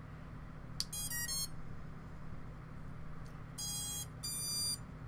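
Racing quadcopter's ESCs beeping their power-up tones through the brushless motors as the battery is plugged in: a click, a quick run of short notes, then two longer beeps near the end, the sign that the electronics have powered up.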